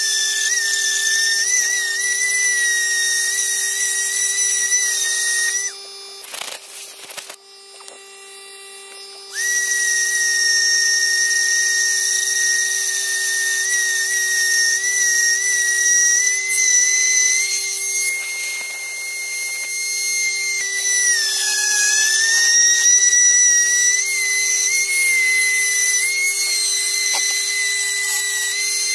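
High-speed rotary carving tool whining as it grinds into wood. It stops for a few seconds near the start, then runs again, its pitch dipping briefly as it bites in harder later on.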